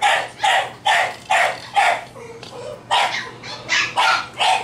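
Cocker Spaniel puppy barking in a quick run of short barks, about two a second, with a brief pause about two seconds in.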